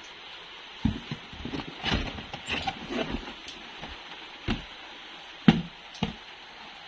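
Hard plastic toys being handled, knocking and clattering on a surface: a busy run of taps and rattles in the first few seconds, then single sharp knocks about a second apart, the loudest near the end.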